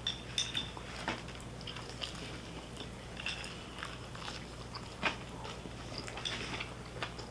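Faint close-up chewing and biting of food, a scatter of small mouth clicks and crunches, over a low steady hum.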